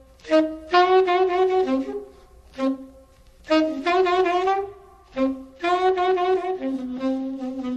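Jazz tenor saxophone playing loose, bluesy phrases behind a poetry reading. It plays several short phrases with brief pauses between them, and near the end slides down to a held low note.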